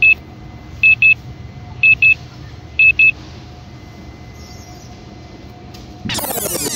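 An electronic beeper sounds four double beeps at one high pitch, about a second apart, over a steady background hum. Near the end, loud music comes in with falling synthesizer sweeps.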